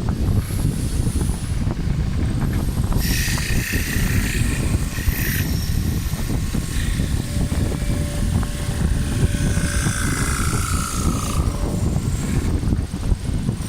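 Mini CNC wood lathe running, with a dense steady low rumble. A brighter, higher rasp joins about three seconds in and drops out after about two seconds, and a falling whine sounds near the end.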